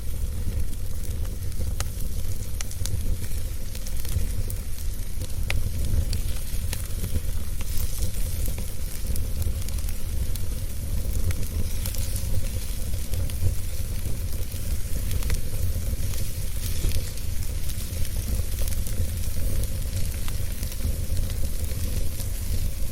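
Fire crackling in a fireplace: scattered sharp pops and snaps over a steady low rumble and hiss.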